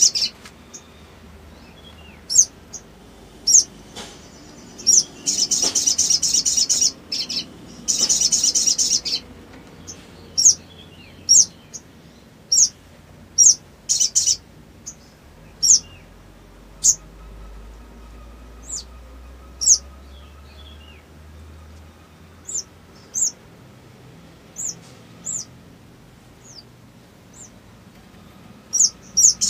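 Male olive-backed sunbird calling: sharp, high chirps about once a second, broken twice by rapid rattling trills of about a second each, around five and eight seconds in.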